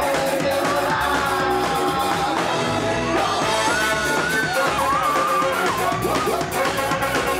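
Ska band playing live: trumpet and trombone over electric guitar and drums with a steady beat, and a voice singing.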